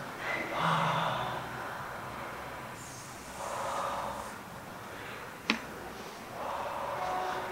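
A man's deep, audible breaths: three slow breaths a few seconds apart. A single sharp click comes between the second and third.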